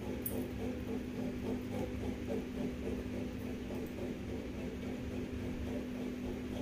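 Steady low hum, with a few faint light ticks near the start.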